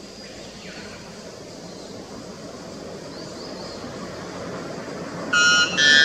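White bellbird giving its very loud two-note call near the end, two pitched notes about half a second apart, the second higher than the first. Before the call there is only a steady low background noise.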